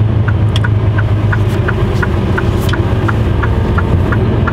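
Mercedes-Benz Actros truck's diesel engine running steadily at low speed, heard inside the cab, with a light ticking repeating about three times a second over it.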